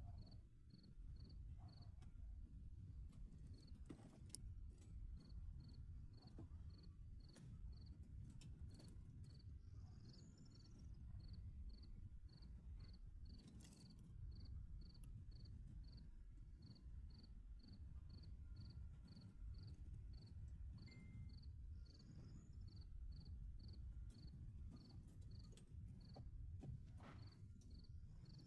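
Faint cricket chirping, a steady train of short high chirps about twice a second, over a low background rumble, with a few faint clicks.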